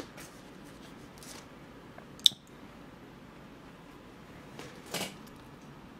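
Close-miked eating of a cream croissant: a sharp click a little over two seconds in as the pastry is bitten, then a brief crunch of flaky crust about five seconds in.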